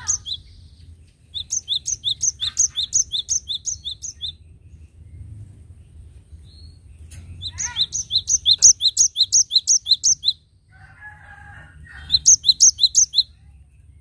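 Cinereous tit (gelatik batu) singing three phrases of fast, evenly repeated high notes, about four a second. A brief lower chatter comes near the end, over a faint low rumble.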